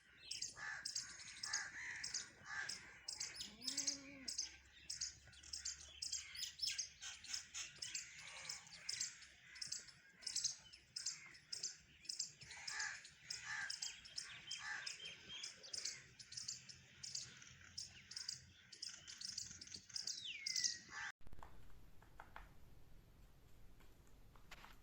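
Birds chirping and tweeting in quick, overlapping high calls, with one falling call near the end. The chirping stops abruptly about 21 seconds in, leaving only faint clicks.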